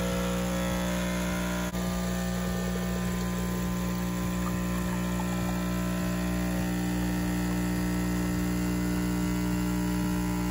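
De'Longhi espresso machine's vibration pump running with a steady, loud hum as it pulls an espresso shot through the two-spout portafilter.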